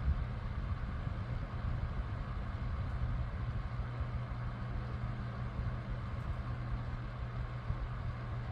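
Electric fan running steadily: an even rush of moving air with a fluttering low rumble and a steady hum.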